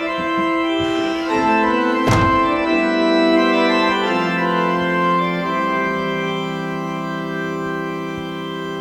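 Background music of sustained organ chords that change every second or so, with one sharp percussive hit about two seconds in.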